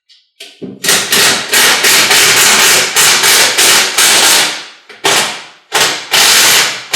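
A run of loud, sharp metallic strikes, about three a second, each ringing briefly, with a short pause about five seconds in: metal door hardware being struck while a door is fitted to its frame.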